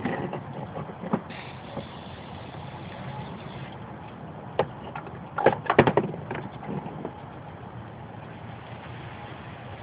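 Aerosol spray paint can hissing as paint is misted onto the board, strongest for about two seconds early on. A few sharp clicks and knocks break in, with a cluster of them about halfway through.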